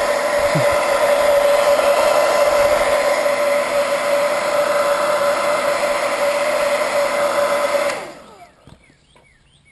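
Handheld blow dryer running steadily with a strong hum, switched off about eight seconds in and winding down to a stop.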